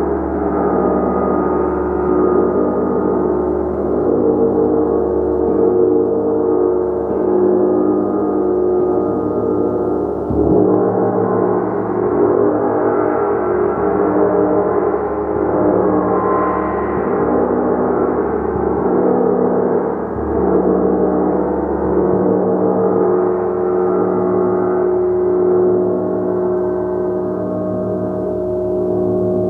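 Gong played continuously, a dense sustained wash of many overlapping overtones that swells and eases without pause. Its low tones shift about ten seconds in and again about twenty seconds in.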